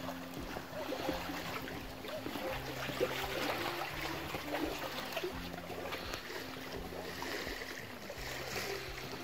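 Small waves lapping on a lakeshore, a steady wash of water, under soft background music of held notes that change every second or two.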